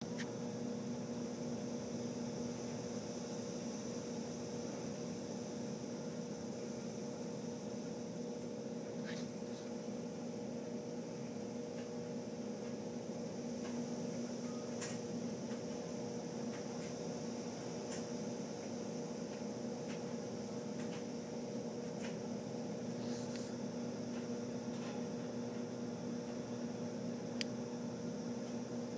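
A steady low mechanical hum with a faint high hiss, unchanging throughout, and a few scattered faint ticks.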